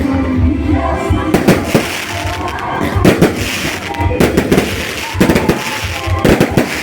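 Fireworks going off in quick, irregular succession, many sharp bangs and crackles a second, with music playing underneath.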